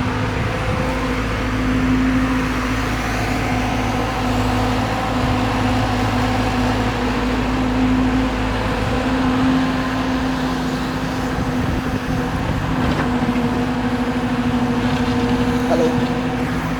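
Hyundai R140LC-9 crawler excavator's diesel engine running steadily with a constant humming tone, its loudness swelling a little now and then as the machine works.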